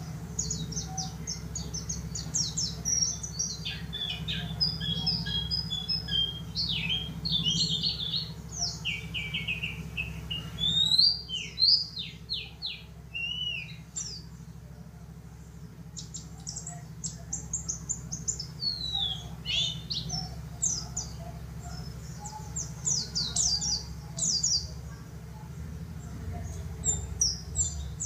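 Yellow-breasted white-eye (pleci dakun) singing fast, high twittering phrases of rapid chirps and trills, with a short lull about halfway through. A steady low hum runs underneath.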